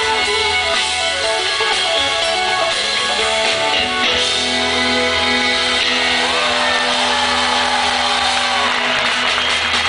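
Live rock band led by an electric guitar played through an amplifier. For the first four seconds the guitar plays a busy run of changing notes; after that the band settles into long held notes, like the closing chord of the song.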